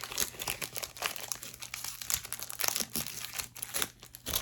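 Crinkling and rustling of a foil Pokémon booster pack wrapper being handled, in a dense run of small crackles.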